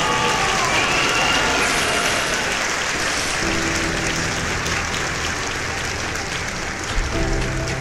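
Dense, crackling clapping-like noise, with steady held musical notes coming in about halfway through.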